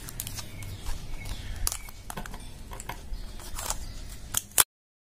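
Scissors snipping, a run of short irregular clicks and snips as excess material is trimmed from around a glued-on lid. The sound cuts off suddenly near the end.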